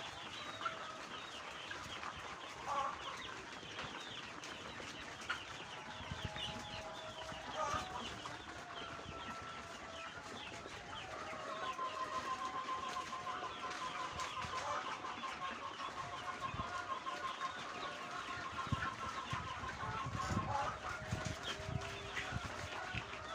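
A flock of chickens clucking and calling, many short overlapping calls, with one long rapid trill running for several seconds from about the middle.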